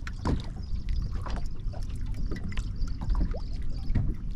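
Small waves lapping and slapping irregularly against a boat hull, over a steady low wind rumble on the microphone.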